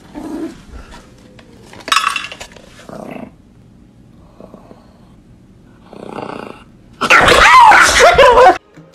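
A small dog makes a few short noises at its food bowl, then a loud, wavering vocal outburst lasting about a second and a half near the end, which cuts off sharply.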